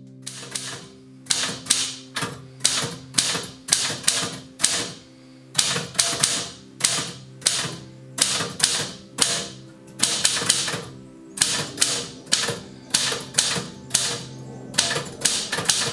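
Typewriter keys striking, the type bars hitting one after another in uneven runs of roughly two strikes a second, over a soft sustained music bed.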